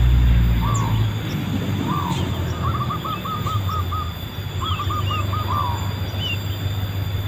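Zebra doves cooing: single coos, then two quick runs of short staccato coo notes in the middle. From the middle on, higher chirping calls of a sooty-headed bulbul join in, over a steady low rumble.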